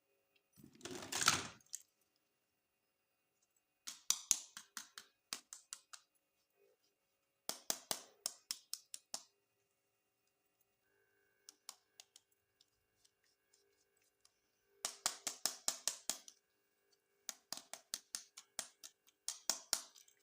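Groups of quick, light plastic clicks from toys being handled, each group lasting about a second with pauses between them, and a short rustle about a second in.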